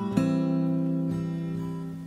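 Acoustic guitar music: a chord is strummed just after the start and left ringing as it slowly fades.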